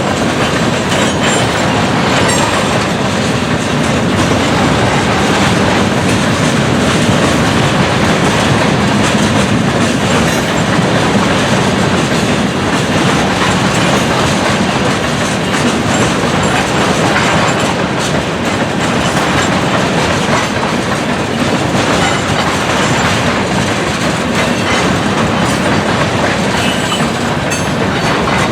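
Freight train cars rolling past at close range, a steady loud noise of steel wheels on the rails.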